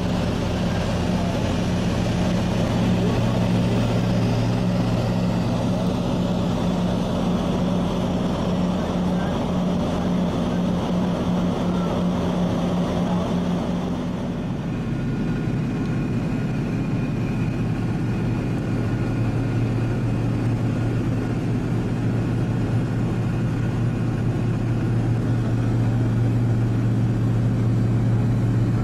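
Steady drone of a Lockheed L-1049 Super Constellation's Wright R-3350 eighteen-cylinder radial engines and propellers in cruise, heard inside the cabin. Its low tone shifts about halfway through.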